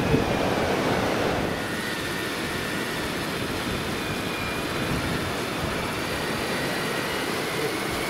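Daiwa Tanacom electric fishing reel's motor running steadily with a thin whine as it winds in line with a fish on, over wind and surf noise.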